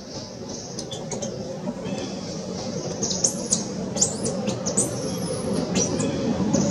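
Small birds chirping: a cluster of short, very high, quickly rising chirps from about three to six seconds in, over a steady low background noise that slowly grows louder.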